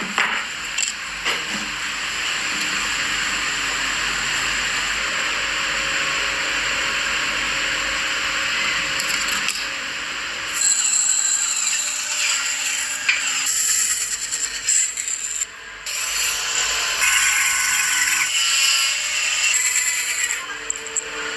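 Woodworking power tools cutting wood, a steady hiss that changes abruptly about ten seconds in and again around fifteen seconds in. Near the end, a band saw is cutting through a thick wooden block.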